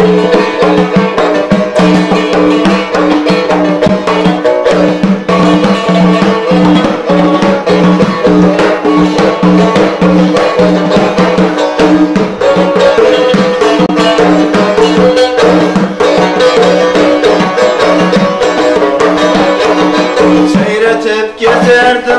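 Long-necked lute strummed rapidly in an instrumental folk passage. Quick repeated strokes run over steady low drone notes.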